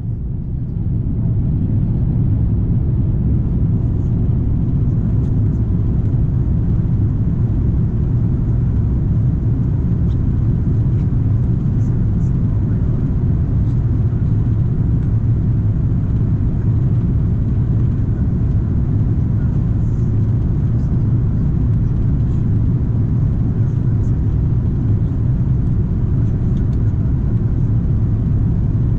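Steady low rumble of airflow and engines inside the passenger cabin of an Airbus A340-300 in flight, heard from a window seat.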